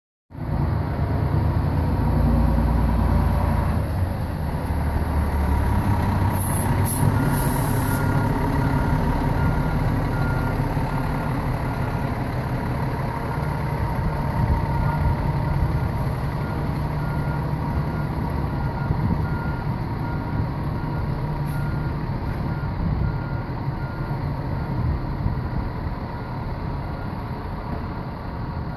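FDNY fire engine's diesel running as it backs into its firehouse bay, its reversing alarm beeping steadily from about seven seconds in until near the end. Short hisses of air from its air brakes come around six to eight seconds in and once more later.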